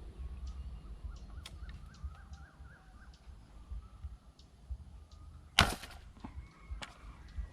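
A single sharp snap of a slingshot fishing arrow being shot, about five and a half seconds in, among faint clicks and low rumble.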